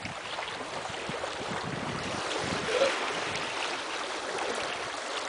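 Water rushing and splashing past the hull of a moving boat on choppy water, with wind buffeting the microphone. A brief pitched squeak comes about three seconds in.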